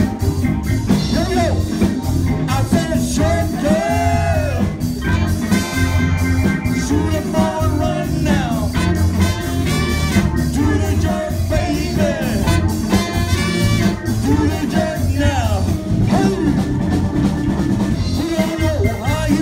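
Live band with saxophones and trumpet playing an upbeat number, with a man singing into the microphone near the end.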